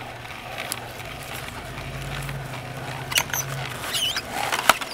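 Omega VRT330 vertical slow juicer running, a steady low motor hum, with a few sharp crackles about three seconds in as the auger crushes leafy greens.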